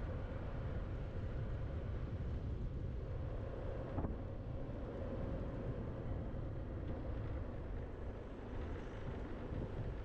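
Scooter riding along an asphalt street: a steady hum from the drive over low road rumble and wind on the microphone, with a single sharp knock about four seconds in.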